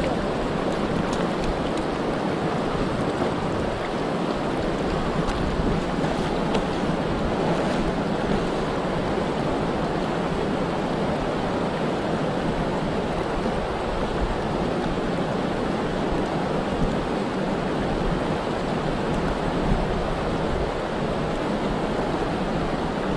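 Snowmelt creek rushing steadily over rocks, a constant even water noise with no break.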